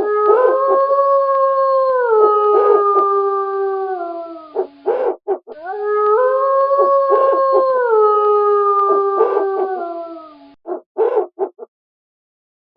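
Wolves howling: two long howls of about five seconds each, each rising at the start, held, then sliding down in steps, with short yips from other wolves breaking in over and between them. The calls stop about a second and a half before the end.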